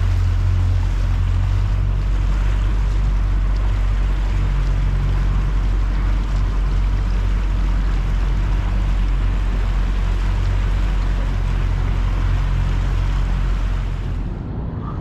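Motorboat running steadily on the river, a low engine drone under the rush of water and wind. It drops away near the end.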